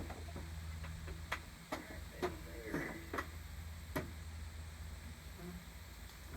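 A handful of sharp, separate clicks and knocks, about five in under three seconds, from the hood and a hood prop being worked on a car.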